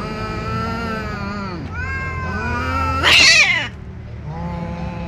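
Two cats in a standoff, yowling: long, wavering, drawn-out caterwauls, one after another. About three seconds in comes a short, loud, harsh screech as they clash, and then another yowl near the end.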